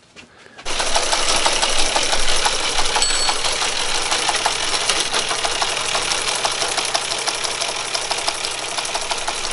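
Teletype typebar page printer running and printing, a fast, even mechanical clatter of typebars and printing mechanism over a low motor hum. It starts abruptly just under a second in and keeps up steadily.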